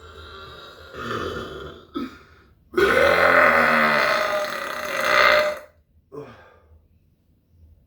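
A man's deliberate burps: a long, loud burp lasting about three seconds, with shorter burps before and after it.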